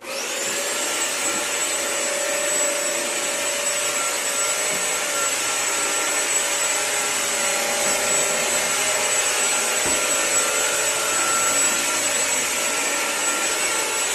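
Eureka Forbes Euroclean Mop n Vac upright wet-and-dry vacuum switching on and running. Its motor whine rises to a steady high pitch within the first half second, and the machine then runs steadily as it is pushed over a tiled floor.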